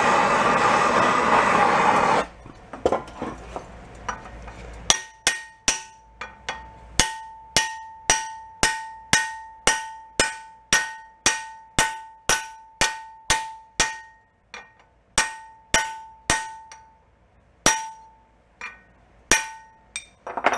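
Gas hand torch hissing loudly for about two seconds, then shut off. It is followed by some two dozen hammer blows, about two a second, on a flat steel bar held over a cherry-red exhaust pipe end, each one ringing. The blows peen the pipe's lip over into a flat flange, with a pause and a few last blows near the end.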